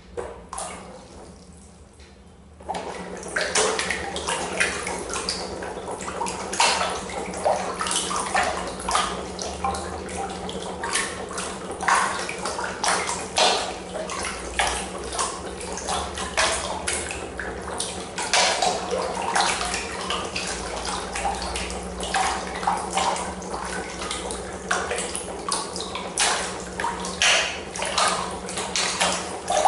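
Water splashing and churning hard in a plastic trough, thrown up by a homemade coil-driven neodymium-magnet piston engine. The splashing starts suddenly about three seconds in, over a steady low hum.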